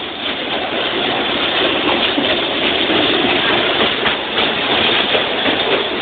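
Indian Railways WDM-2A diesel locomotive passing alongside at close range, its engine running loud and steady, with some clatter from its wheels on the track.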